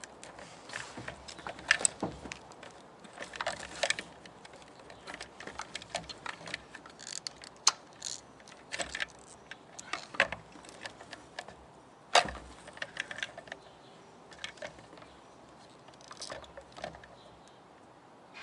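Irregular clicks, taps and knocks of hard plastic and metal parts being handled while a DeatschWerks DW65C fuel pump is seated in its holder in the fuel pump assembly, with a few sharper knocks among them.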